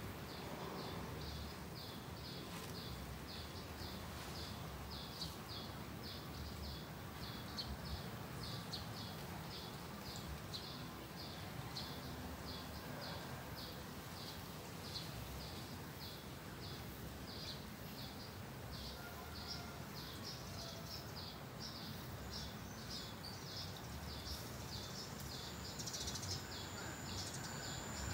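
Outdoor ambience: a small creature chirping regularly in short high notes, about two a second, over a low rumble of background noise. A thin, steady high buzz joins near the end.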